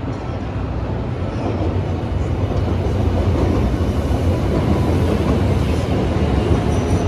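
Seoul subway Line 1 train running on its rails: a steady rumble that grows a little louder.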